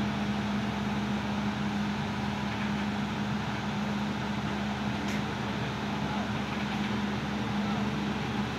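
Heavy construction vehicle's diesel engine running at a steady idle, with a constant low hum.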